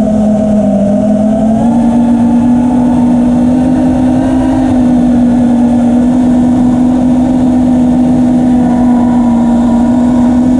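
Brushless motors of a 6-inch FPV quadcopter (T-Motor F80 Pro 1900KV on 6S, turning Gemfan 5042 props), heard from on board. They give a steady buzzing whine at an even cruise throttle, rising a little in pitch about two seconds in, with a rushing noise underneath.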